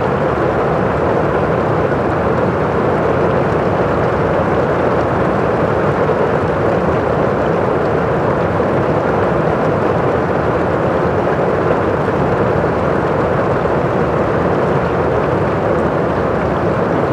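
Heavy rain drumming steadily on a roof, heard from inside the house, so it comes through muffled, without sharp high patter.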